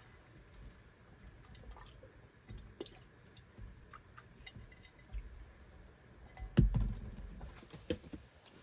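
Raccoons eating tangerine: scattered small clicks and wet smacks of chewing and handling the fruit. There is a louder low bump about two-thirds of the way through.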